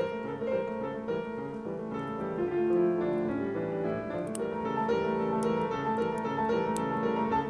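Background piano music, a melody of sustained notes changing steadily.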